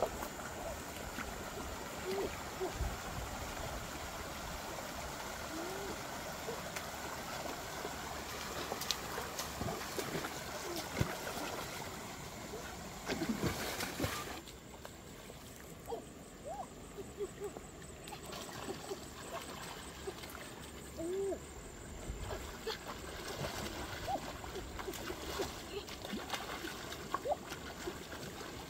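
Water splashing and trickling, with scattered small splashes and gurgles; the background hiss drops about halfway through.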